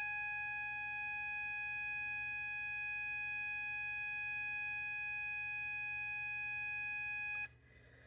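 System Sensor MASS fire alarm horn sounding its basic continuous 800 Hz tone, a steady, unbroken, low-pitched electronic tone that cuts off sharply shortly before the end.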